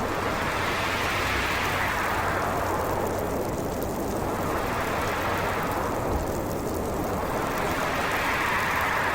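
Storm wind blowing in a heavy winter snowstorm, a steady rush whose pitch and strength swell and ease in gusts every few seconds.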